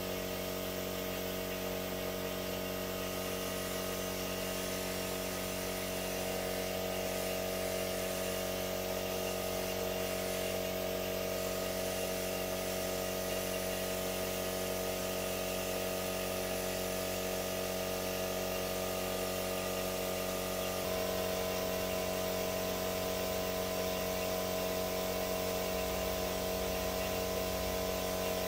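A small motor running with a steady drone of several constant pitches, one of the higher ones dropping out about three quarters of the way through.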